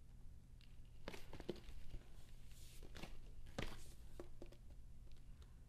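Faint handling noise of a cardboard laptop box being turned over by hand: a few soft knocks and taps with a brief brushing scrape midway, over a low steady hum.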